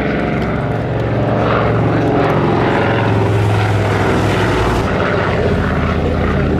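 Avro Anson's twin radial engines and propellers droning as the aircraft flies low past overhead. The drone grows louder towards the middle and drops in pitch about five seconds in as it passes and moves away.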